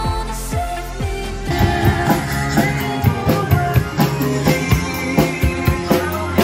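Pop music playing, joined about a second and a half in by an acoustic drum kit played along with it in quick, busy strikes.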